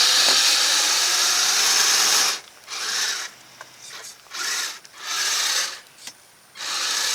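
Kyosho Blizzard RC snowcat's electric drive motor, gears and tracks whirring and grinding as it pushes snow. It runs steadily for about two seconds, then in short stop-start bursts.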